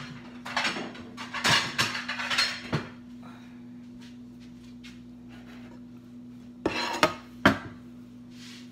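White ceramic plates and bowls knocking and clinking as they are moved and set down on a kitchen counter: a cluster of knocks in the first three seconds, then two or three sharper ones about seven seconds in.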